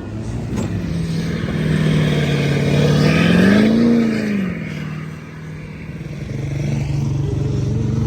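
An engine running, which revs up briefly about three seconds in and then drops back to a steady idle.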